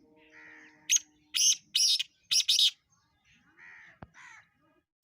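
Black francolin calling: a quick run of about five loud, harsh, grating notes starting about a second in. Softer notes come before and after it, and a new run begins at the very end.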